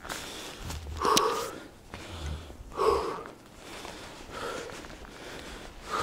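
A person breathing heavily and rhythmically, a breath about every one and a half seconds, with a few sharp clicks between.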